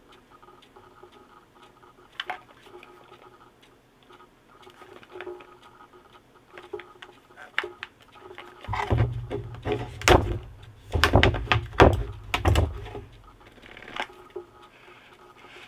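Handling noises of a phone box and its packaging being opened: scattered light clicks and taps, then a run of louder knocks and thuds for about four seconds past the middle.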